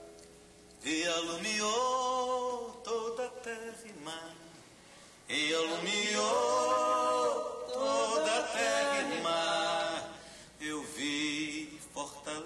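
A man singing in long held phrases, mostly unaccompanied. The voice starts about a second in and pauses briefly near the middle before going on.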